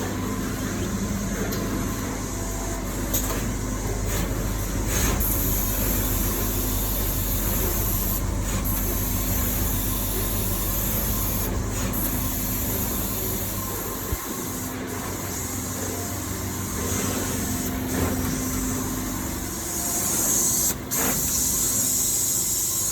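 SMT production line running: pick-and-place machines give a steady hum with a constant high hiss and a few brief ticks.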